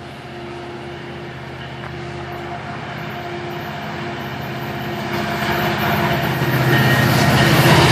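GO Transit MP40PH-3C diesel locomotive approaching at the head of an express train. Its engine drone grows steadily louder as it nears.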